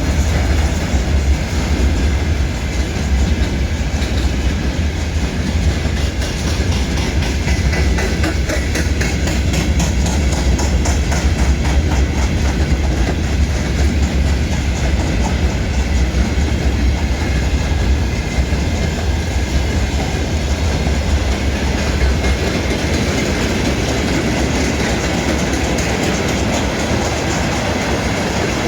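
Railway cars rolling past, steady and loud, with a low rumble and wheels clattering over the rail joints.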